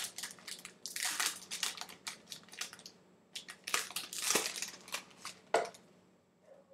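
Trading-card packs and cards being handled, the wrappers crinkling and rustling in irregular bursts. There is a sharp tap about five and a half seconds in.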